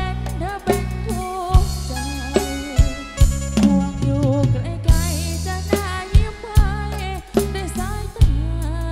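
A band playing a song through a large PA system with stacked bass speaker cabinets. Heavy bass and drum beats sit under a sung melody.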